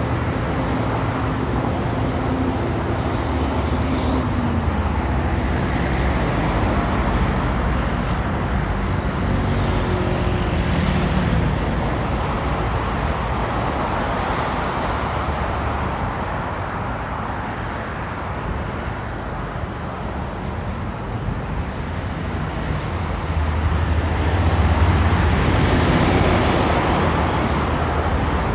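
Steady road traffic on a city avenue: cars passing with continuous tyre and engine noise. The sound swells as passing vehicles come close, once about ten seconds in and most strongly, with a deep engine rumble, about three-quarters of the way through.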